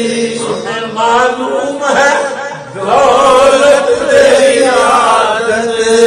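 A man's voice chanting a naat in long, sliding, melismatic notes over a steady sustained drone, with a short breath pause about two and a half seconds in.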